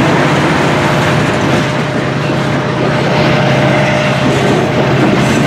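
Freight train cars rolling past at close range: a loud, steady rumble and clatter of steel wheels on the rails.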